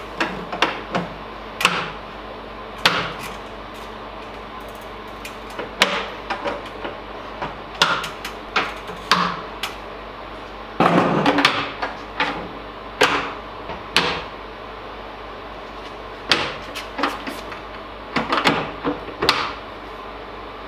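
Wooden kitchen cabinet doors being hung on upper cabinets and shut against the frames: an irregular run of short, sharp knocks and clicks, about one or two a second.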